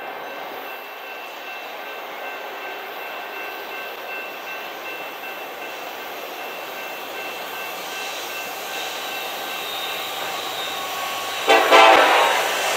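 Approaching diesel freight train, its rumble slowly building; near the end the lead locomotive's air horn sounds one loud blast of about a second.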